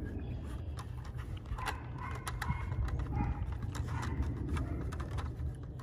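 Plastic treat-dispensing puzzle toy clicking and knocking irregularly as a dog noses and paws at it to work treats out, over a steady low rumble.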